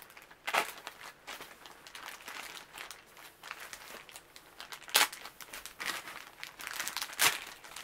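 Plastic packets of sheet face masks crinkling as hands shuffle and sort through them. There are irregular rustles throughout, with sharper crackles about half a second in, around five seconds and near the end.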